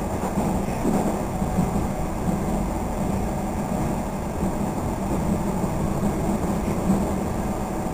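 Comeng electric suburban train running between stations, heard from inside the passenger carriage: a steady low rumble from the running gear on the rails.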